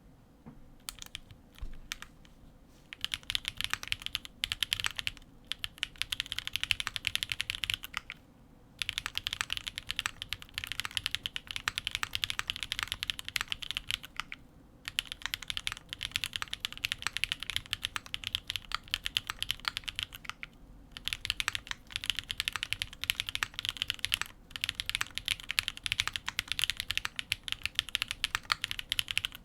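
Custom mechanical keyboard with unlubricated Gateron RAW switches in an aluminium plate, with plate foam and GMK keycaps, being typed on fast. The typing comes in runs of several seconds with short pauses between them, after a few single keystrokes about a second in.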